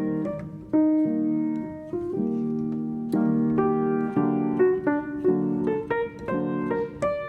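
Background piano music, a soft melody of single notes and chords.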